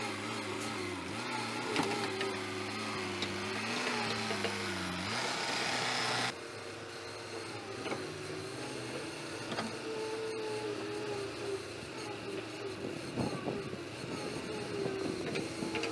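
Wheeled excavator's diesel engine working under load while digging, its pitch rising and falling as the hydraulics work the boom and bucket, with a few knocks of the bucket in the soil. The sound shifts abruptly about six seconds in.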